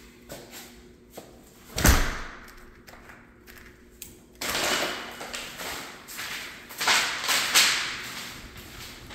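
An exterior door thuds shut about two seconds in. Then come footsteps scuffing and rustling over the paper floor protection.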